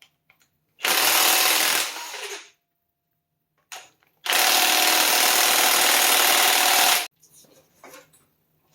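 Impact wrench run in two bursts on a tight cylinder-head bolt of a K24A2 engine, about a second and a half and then about three seconds, with the bolt not yet breaking loose.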